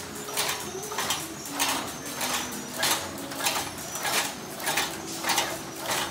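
PFM Hurricane flow-wrapping machine with an Etipack Whizzy labeller running: a sharp mechanical clack about every 0.6 seconds over a steady motor hum.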